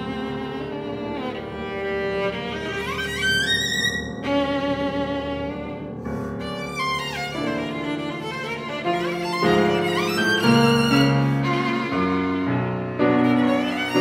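Solo violin playing with piano accompaniment, the violin's notes sung with vibrato. Quick rising runs come about three seconds in and again near the end.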